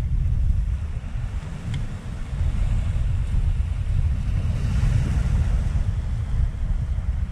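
Wind buffeting the microphone as a loud, constant low rumble, with small sea waves washing over a shallow reef flat, the wash swelling about halfway through.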